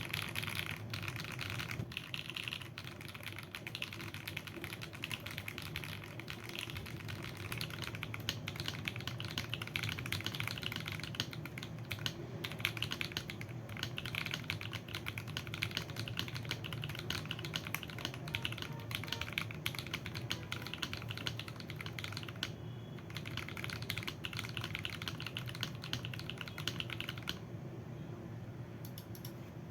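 Mechanical keyboard with lubed Akko Cream Blue V3 Pro switches and PBT keycaps, typed on in a steady, rapid run of key clicks with a couple of short pauses near the end.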